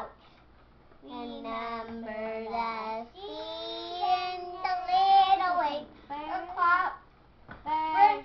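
Young girls singing a children's song without accompaniment, starting about a second in, held sung notes rising and falling in pitch, with a brief pause near the end before the singing resumes.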